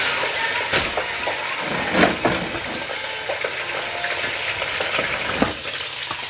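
Food sizzling in a frying pan, a steady hiss, with a few knocks and clatters along the way.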